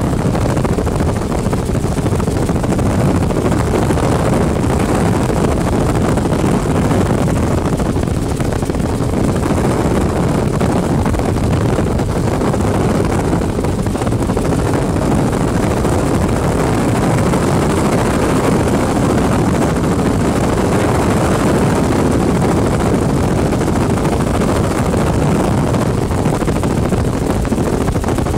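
Helicopter in flight: loud, steady engine and rotor noise.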